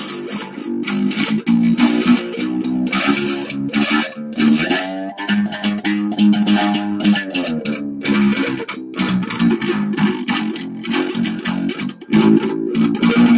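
Down-tuned electric guitar played through overdrive, a choppy riff of short, clipped notes with quick stops. Around the middle, a held note bends in pitch before the chopping resumes.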